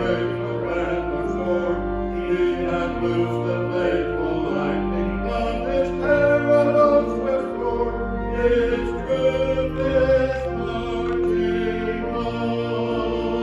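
Slow sacred music at the start of a worship service: singing voices over sustained chords that change every second or two.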